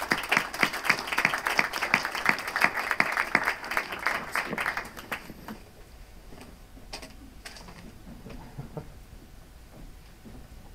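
Audience applauding for about five seconds, then fading to a few scattered claps.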